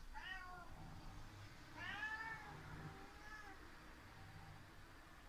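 Domestic tabby cat meowing three times: a short falling meow at the start, a longer, louder rising-then-falling meow about two seconds in, and a fainter short one just after, which the owner takes for the cat grumbling at the other cat that got away from it.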